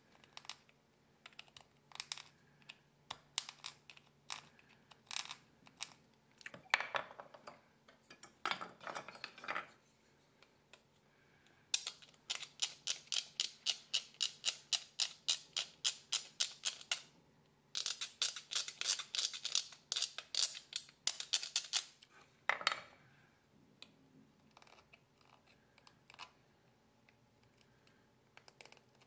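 A small hand carving blade scraping and paring a tagua nut (vegetable ivory): scattered crisp clicks and a few longer scrapes, then two runs of quick, even scraping strokes, about four or five a second, starting about twelve seconds in and again about eighteen seconds in.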